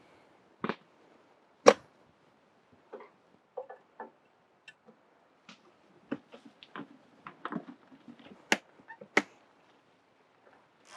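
Scattered clicks and knocks of wheelchair parts being handled and fitted while a wheel goes onto a GRIT Freedom Chair, with one loud knock about two seconds in.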